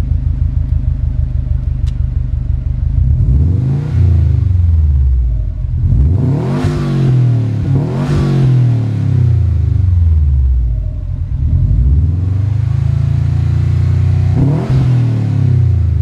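2015 Subaru WRX STI's turbocharged 2.5-litre flat-four engine running through a PERRIN resonated cat-back exhaust. It idles for about three seconds, then is revved with the car standing, about four times. The pitch rises and falls with each blip.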